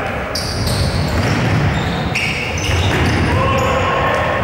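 Busy, echoing sports-hall noise of a futsal game in play: the ball and players' shoes on the wooden floor, with players' calls.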